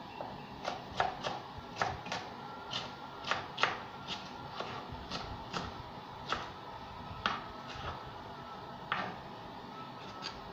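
Kitchen knife chopping green bell pepper on a plastic cutting board: irregular sharp taps of the blade on the board, coming quickly for the first few seconds and more sparsely after.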